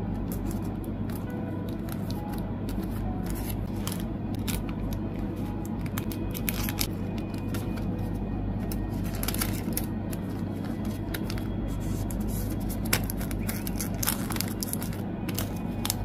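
Clear plastic photocard sleeves crinkling and crackling as cards are slid in and out by hand, with a few sharper crackles among them, over music playing throughout.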